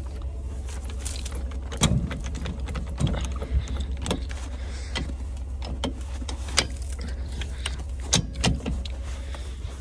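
Metal clinks and clanks from a trailer hitch being coupled up: the safety chains rattling and the coupler and jack being handled. These come as a dozen or so sharp knocks over a steady low hum.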